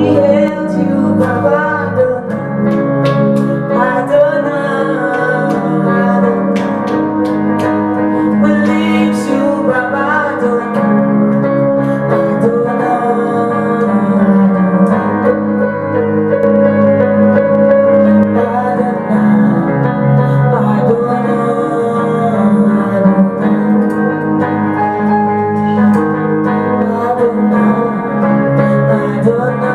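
Worship music: a steady keyboard and guitar accompaniment with some singing.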